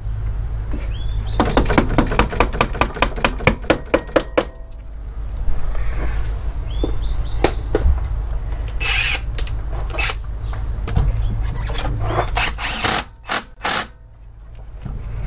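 Hand tools working on the freshly fitted alternator's mounting bolts: a rapid, even run of clicks at about six a second for some three seconds, then scattered knocks and short rustling bursts over a steady low rumble.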